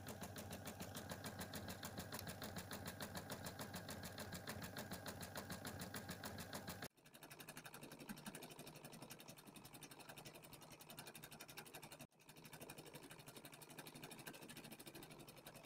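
Husqvarna Viking embroidery machine running, its needle stitching in a fast, even ticking rhythm as it sews a satin-stitch border. The sound breaks off abruptly twice and resumes slightly quieter.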